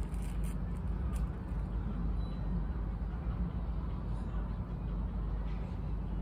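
Steady low rumble of distant city road traffic, with a few faint clicks in the first second or so.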